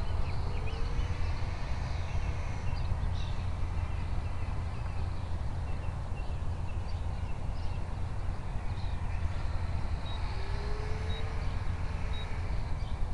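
Steady low rumble of wind buffeting the microphone, with faint bird chirps. In the last few seconds a flight timer gives short high beeps about once a second.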